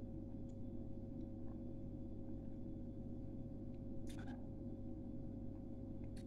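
Steady low electrical room hum with a constant mid-pitched tone. About four seconds in comes a short breathy puff, and another brief one near the end.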